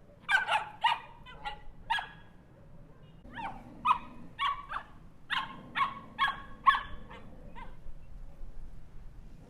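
Small dog barking in sharp, high-pitched yaps: a short run of about five barks, a pause of about a second, then a longer run of about nine barks that stops well before the end.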